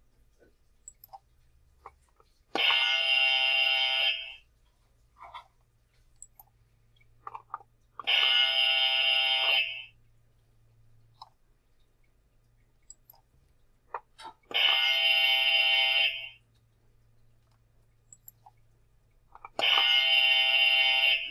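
Buzzer sounding four times, each buzz lasting about one and a half seconds with a pause of about four seconds between them: the cue to pause the video and attempt the question.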